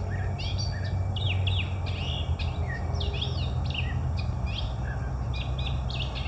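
Several birds chirping and calling, a dense run of short, quick, high notes and swoops, over a steady low rumble.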